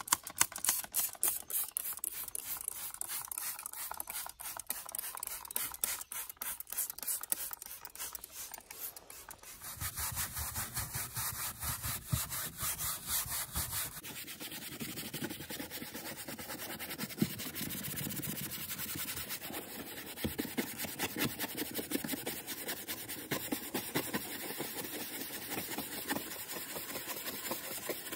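Detailing brush scrubbing cleaner into a car's plastic interior door trim, in quick, continuous back-and-forth strokes. The tone of the scrubbing changes abruptly twice along the way.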